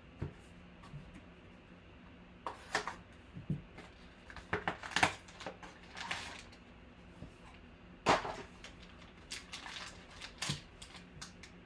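Cardboard trading-card box being torn open by hand and foil card packs crinkling as they are pulled out, in short irregular rustling bursts, loudest about five and eight seconds in.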